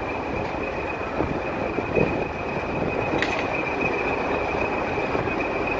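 Diesel locomotive running as it rolls slowly up to the platform: a steady engine rumble with a thin, high, steady whine running through it. There is a brief click about three seconds in.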